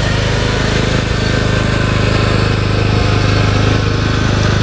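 Lawn mower's small engine running steadily at a constant speed.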